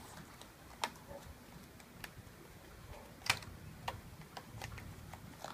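Scattered light clicks and taps of the cardboard retail box of a Boya BY-LM10 lapel mic being handled and opened, its inner tray slid out; about five separate ticks, the sharpest a little over three seconds in.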